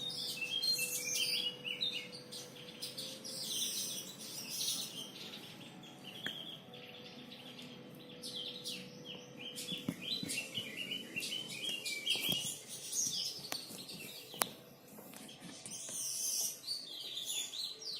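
Javan grey-throated white-eye (opior jawa) singing: repeated bursts of quick, high chirping phrases with short pauses between. A few sharp clicks come in the second half, the loudest about three-quarters of the way through.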